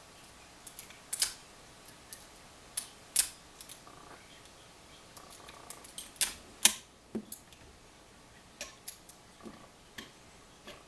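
Irregular small metallic clicks and taps of a pick and tension wrench working in a brass Master Lock 140 padlock, with a few louder clicks a little after the middle.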